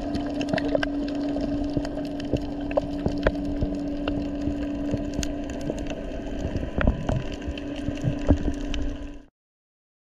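Underwater sound on a coral reef: a dense, irregular crackle of sharp clicks over a steady hum, cutting off suddenly about nine seconds in.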